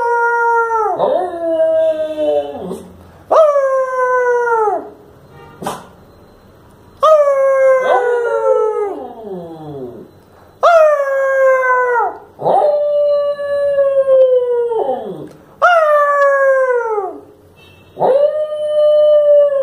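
A Lhasa apso howling over and over, each howl one to two seconds long and sliding down in pitch, with short gaps between them: the dog 'talking' back to its owner.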